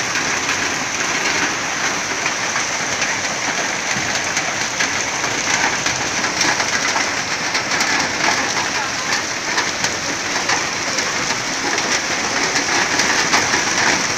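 Heavy rain falling steadily: an even hiss thick with the ticks of individual drops striking, holding at the same strength throughout.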